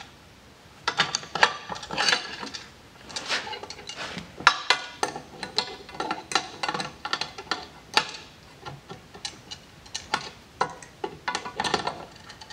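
Adjustable wrench clinking and ticking on a fitting of a fuel cell fill plate as it is worked round, a run of short, irregular metallic clicks starting about a second in.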